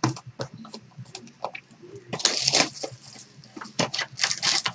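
Foil-wrapped trading card boxes being handled and unwrapped: crinkling foil and plastic wrap with light taps and clicks of cardboard, loudest in crinkles about two seconds in and again near the end.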